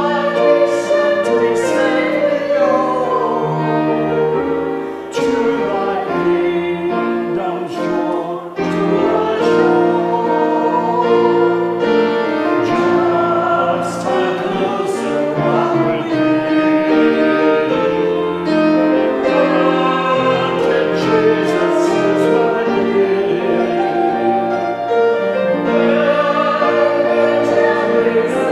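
A woman and a man singing a duet, accompanied by a grand piano.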